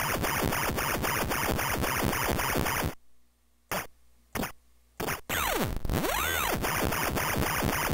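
Harsh electronic sound loop of rapid, regular pulses with steady high tones. It cuts out for about two seconds near the middle, broken by three single clicks, then comes back with a deep swoop down and up in pitch before the pulsing resumes.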